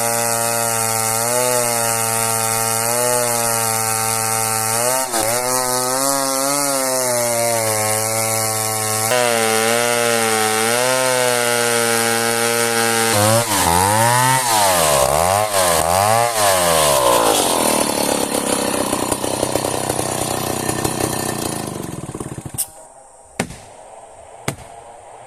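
Chainsaw cutting merbau hardwood: the engine runs steadily under load with its pitch wavering, then revs up and down several times, rises to a higher pitch and stops near the end. Three sharp knocks follow after it stops.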